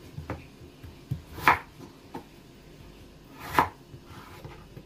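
Kitchen knife chopping a peeled raw potato on a wooden cutting board: a handful of irregular knocks as the blade goes through and strikes the board. Two knocks are louder than the rest, one about a second and a half in and one a little past the middle.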